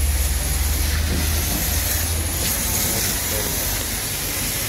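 A wash mitt scrubbing over a foam-covered car body, under a steady hiss and a deep rumble that fades out about a second and a half in.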